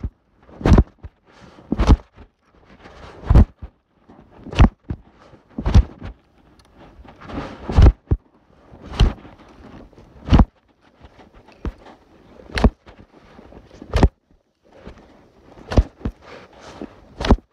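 Hatchet chopping into a tree: a steady series of sharp blows, roughly one every second or so.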